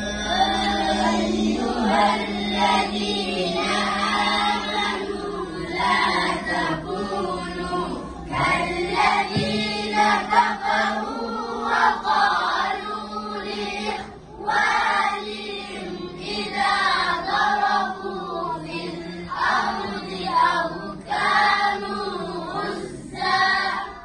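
A group of children chanting together in unison, in phrases with short breaks between them.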